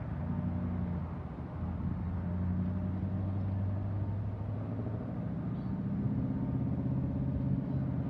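Union Pacific freight train's diesel locomotives running at a distance, a steady low engine drone whose pitch shifts about a second in and again around five seconds in.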